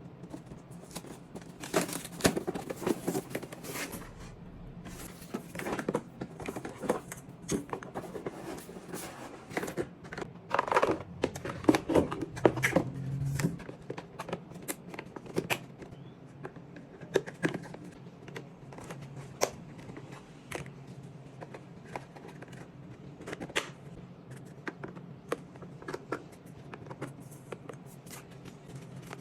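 A toy play set being unboxed by hand: irregular clicks, scrapes and rustles of packaging and plastic pieces, busiest and loudest about ten to thirteen seconds in.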